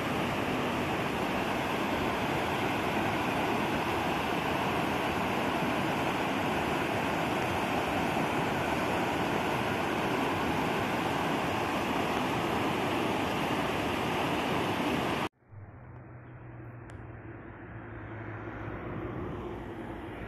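Rushing mountain stream, a loud steady roar of white water tumbling over rocks. It cuts off suddenly about 15 seconds in, leaving a much quieter, low steady outdoor hum.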